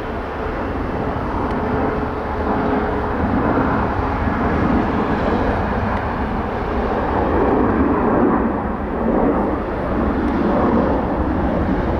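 Jet airliner's engines running at takeoff power during the takeoff roll: a loud, steady jet noise that swells and eases slightly.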